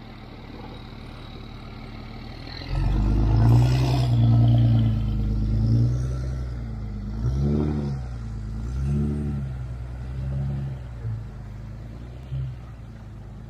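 Speedboat outboard motor starting abruptly a few seconds in and running, with several short rises and falls in engine speed as the throttle is blipped, then settling back to a low hum.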